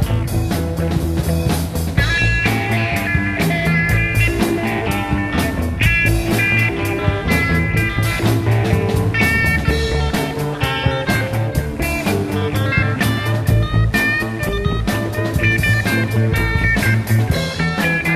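Instrumental break of a rock song with no singing: a drum kit keeps a steady beat under bass guitar and guitars playing melodic lines.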